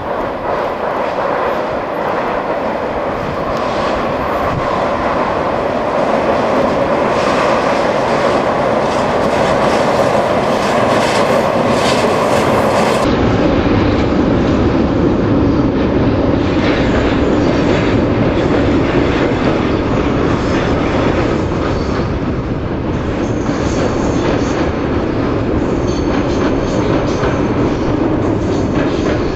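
A diesel-hauled train of passenger coaches crossing a steel truss bridge: a steady rolling rumble of wheels on the bridge with repeated clacks over the rail joints. About halfway through, the sound abruptly turns deeper and heavier as the coaches pass close by.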